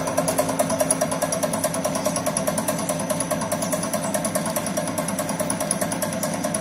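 A corn tube snack extruder (DSC-3500) running steadily on corn grits: a mechanical hum with a fast, even pulsing.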